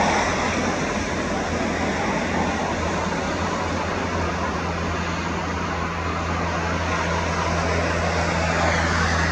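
Jet engines of a taxiing twin-engine regional airliner heard from far off: a steady rushing noise over a low, even hum.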